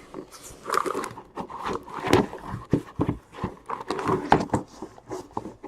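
Cardboard trading-card hobby boxes being handled and pulled from their case: a run of irregular knocks, taps and scrapes.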